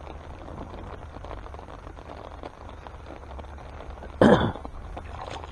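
A hooked carp splashing once at the water's surface: a short, loud splash about four seconds in, over a steady low background rumble.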